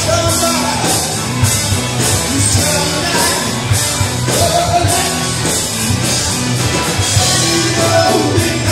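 Live blues-rock band playing: a Les Paul-style electric guitar and a drum kit with steady cymbal strokes, with a man singing the lead vocal in phrases over it.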